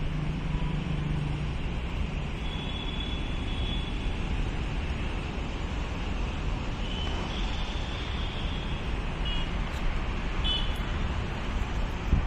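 Steady rushing outdoor noise, like wind on the microphone or a distant engine, with a low hum early and a few short high-pitched chirps later on.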